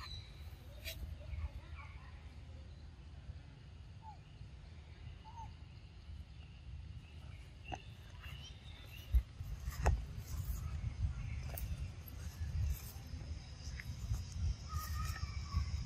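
Outdoor forest ambience: a steady low rumble with a few short bird chirps scattered through, and sharp clicks and knocks, the loudest about nine and ten seconds in.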